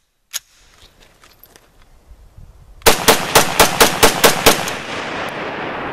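A wooden-stocked rifle fired rapidly, about eight shots in under two seconds, after a small click of handling. A steady hiss follows the string of shots.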